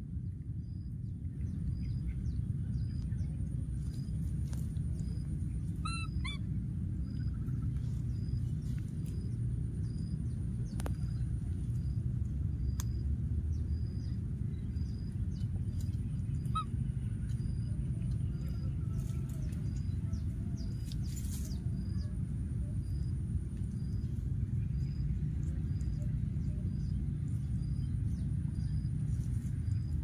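Steady low outdoor rumble, with faint regular ticking about once a second and a short, high-pitched animal call about six seconds in, a weaker one near sixteen seconds.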